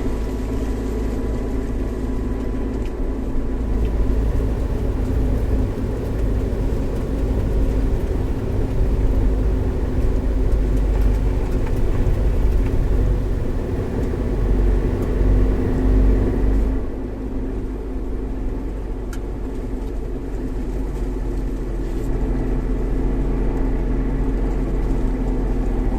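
Suzuki Jimny JB64 running while being driven, its small three-cylinder turbo engine and the tyres making a steady low rumble. About 17 seconds in the sound drops suddenly and gets quieter, then builds slightly again near the end.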